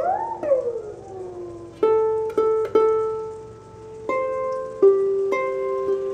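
Background music of plucked string notes, several repeated on one pitch and then stepping to new notes. It opens with a sliding, wavering pitched glide that dies away within about the first second.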